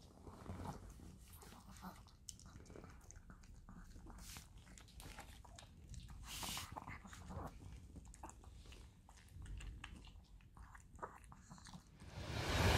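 Small dog chewing and crunching its food from a stainless steel bowl, a run of short, irregular bites and clicks. Near the end, surf and wind noise fade in.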